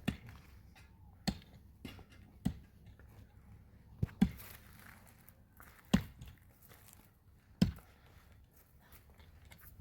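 A series of sharp knocks or thuds, about seven of them, spaced unevenly one to two seconds apart, over a faint quiet background.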